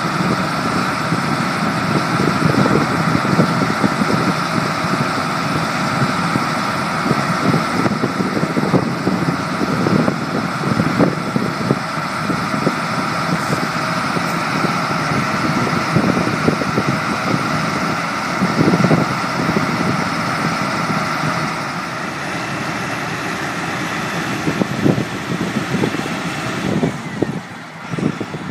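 Ropa Bunkermaus maize transfer loader running under load: its diesel engine and conveyors work steadily with a constant high whine over a heavy rumble while chopped maize is fed through. Near the end the sound drops a little.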